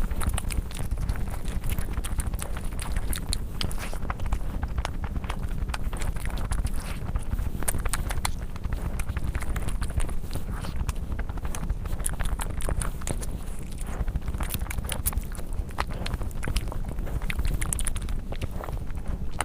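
Close-miked chewing and mouth sounds of someone eating: a continuous run of small, sharp, wet clicks over a low rumble.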